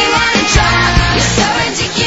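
Loud rock-style music with a singing voice over sustained bass notes and drum hits.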